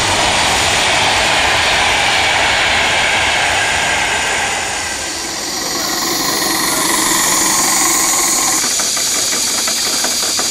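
Steam hissing steadily. It starts as a broad rush that eases about five seconds in, then becomes a higher, sharper hiss from a miniature steam engine, with fast light ticking from its running gear near the end.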